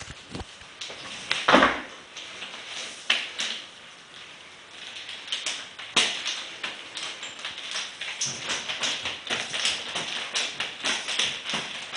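Chain nunchaku being spun and caught: a busy run of short swishes and sharp clacks as the handles whip through the air and strike the hands, the loudest hit about a second and a half in and the strokes coming faster from about halfway.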